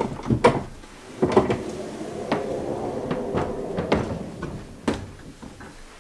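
Solid pine barn door being hung and moved on its overhead rail: several sharp knocks, and a steady rolling rumble in the middle as the door's rollers run along the track.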